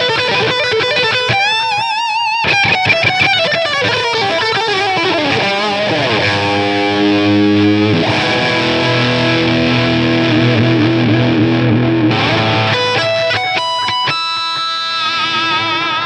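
Electric guitar, a PRS CE24 on its Gibson 57 Classic Plus bridge pickup, playing a lead line through an amp. It starts with bent notes shaken with vibrato and a falling run, moves into held chords, then quick single notes, and ends on a long held note.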